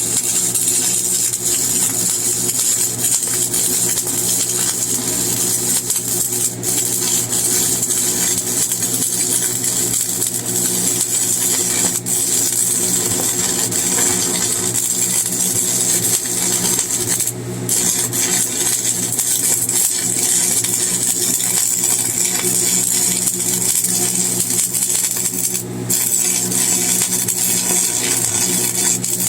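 Stick welding with a 7018 rod: the arc crackles and fries steadily over a constant hum. The crackle dips briefly twice, about 17 and 26 seconds in.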